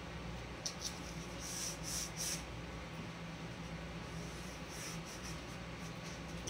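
Strips of painter's tape being laid on a canvas and rubbed down by hand: a couple of light clicks about a second in, then a few short scratchy rubs, with fainter ones again near the end.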